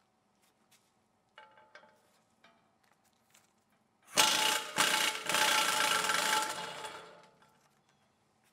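Impact wrench running on a wheel hub's centre nut for about three seconds, a loud burst of hammering with a whine that winds down at the end. Light clicks and clinks of metal parts being handled come first.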